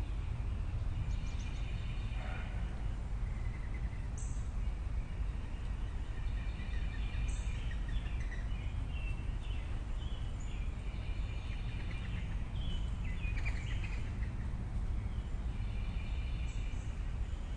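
Birds chirping and calling on and off over a steady low rumble.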